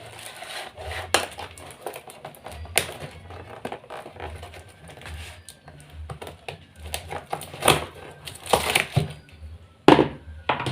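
Packaging being handled while a plastic packet is cut open: rustling and crinkling with irregular sharp clicks and knocks, the loudest ones near the end.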